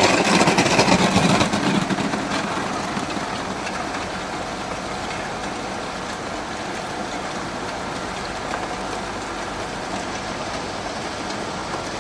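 Cube ice machine running with a steady mechanical hum, louder and rougher for about the first second and a half before it settles.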